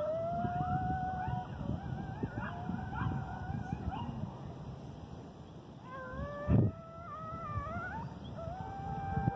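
Several coyotes howling and yipping together, their long wavering howls overlapping at different pitches. A brief sharp knock about six and a half seconds in is the loudest sound.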